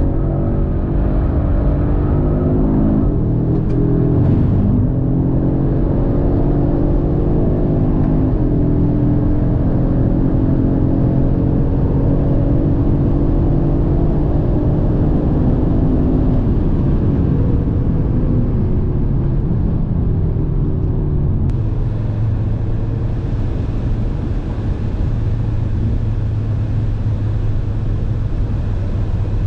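A car engine pulling hard on a racetrack, its pitch rising and easing as the car accelerates and slows. About two-thirds of the way through, it drops to a lower, steady note with a hiss of wind and road noise over it.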